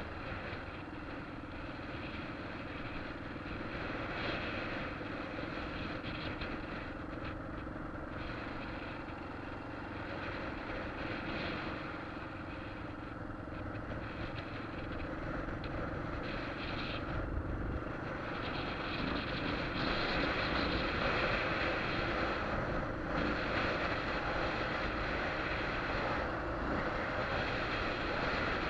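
Motorcycle riding along a road, heard from a camera mounted on the bike: a steady engine hum under a constant rush of wind and road noise, somewhat louder in the second half.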